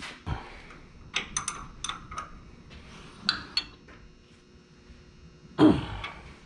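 Scattered metallic clicks and clinks of hands and hardware working at a tractor's PTO-to-hydraulic-pump coupler as it is tightened down, then one louder thump near the end.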